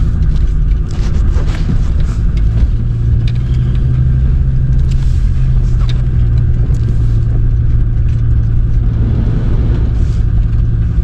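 Car running at low speed on a gravel track, heard from inside the cabin: a steady low engine hum and tyre rumble, with scattered short clicks and ticks.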